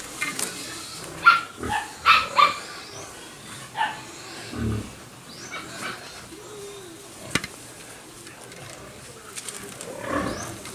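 Dog barks in short, separate bursts, most of them in the first few seconds and again near the end, with a sharp click about seven seconds in.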